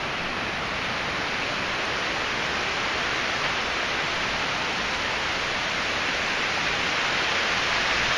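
Small waterfall, a steady rush of falling water.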